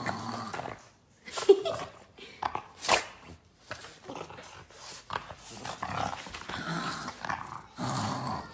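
Boston Terrier growling in play as it bites and tugs at a slipper on a person's foot, in irregular bursts, with two sharp loud sounds about a second and a half and three seconds in.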